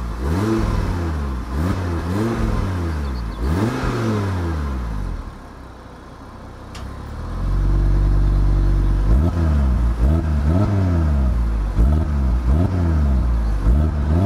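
2022 Audi RS3's turbocharged five-cylinder engine revved while standing, heard from the exhaust. First comes a few free-revving blips with the exhaust flaps closed in Comfort mode, then a short drop back to idle. About halfway through it gets louder, with the flaps open in Dynamic mode: a held rev, then quick blips about once a second.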